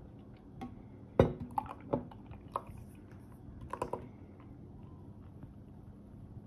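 Light knocks and clinks of a beer can and glassware handled on a wooden table, while beer is poured from the can into a glass. The sharpest knock comes about a second in, and a quick run of small clicks follows near the end.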